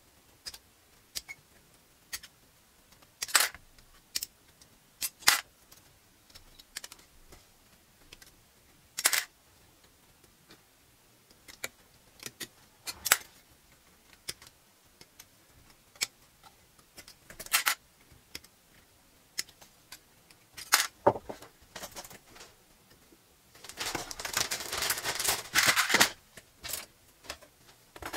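Sharp single snips of hard plastic model-kit runners being cut with hobby side cutters, spaced a second to several seconds apart. About three-quarters of the way through comes a couple of seconds of plastic clattering and rattling as the runners are handled.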